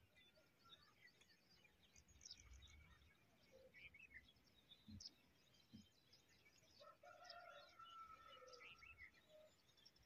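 Faint birdsong: many small birds chirping and twittering, with a longer whistled call about seven seconds in. Two faint low thuds sound around five seconds in.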